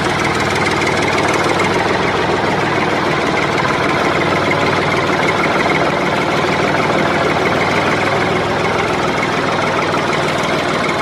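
An engine running steadily at idle, with a dense rapid chugging that holds even throughout.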